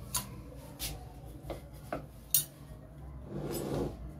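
Kitchen things being handled on the counter: five short clinks and knocks, the loudest about two and a half seconds in, then a brief rubbing sound near the end.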